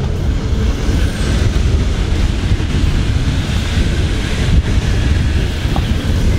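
Wind buffeting the microphone over a steady low rumble from the boat and the choppy sea.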